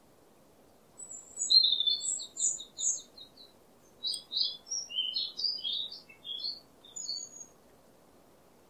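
A songbird singing two quick twittering phrases of rapid high chirps, starting about a second in, with a brief break around the middle.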